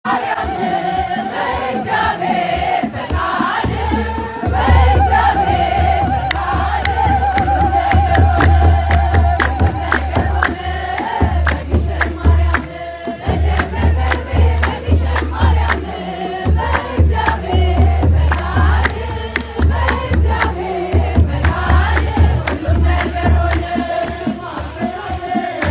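Ethiopian Orthodox hymn (mezmur) sung by a crowd in unison, with rhythmic hand-clapping and a kebero drum beating heavily underneath.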